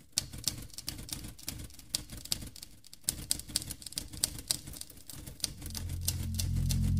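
Typewriter keys clacking in an irregular run of sharp clicks, several a second. Low bass music fades in and swells over the last second or so.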